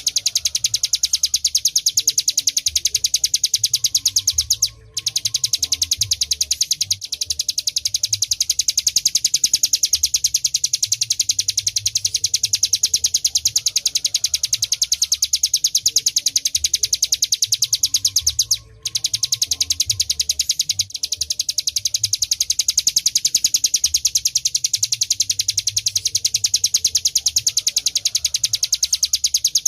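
Ciblek gunung, a mountain prinia, singing a long, fast, unbroken series of evenly repeated high notes. The song stops twice for a moment, about 5 seconds and 19 seconds in.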